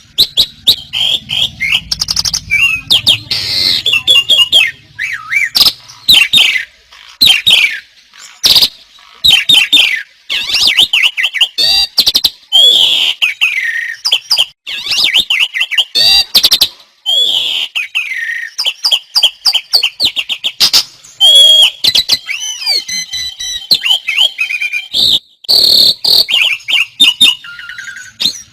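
Several songbirds singing hard at the same time, their rapid chirps, trills and whistles overlapping without a break.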